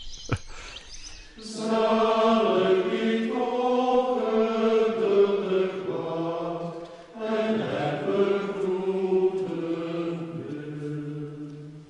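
Trappist monks chanting a hymn of the night vigils, men's voices singing together in two long sustained phrases, with a short break about seven seconds in and the second phrase fading near the end.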